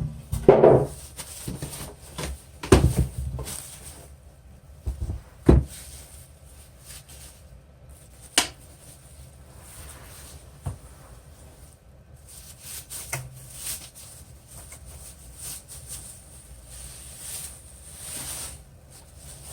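Cardboard box and packing being handled while a heavy sewing machine is worked out of it sideways: a string of separate knocks and thumps in the first half, then softer rustling and scraping.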